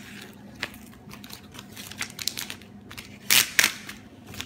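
Waste matrix of a kiss-cut printed sticker sheet being peeled off by hand, the adhesive film crackling and crinkling as it pulls away, with two louder crackles a little past three seconds in.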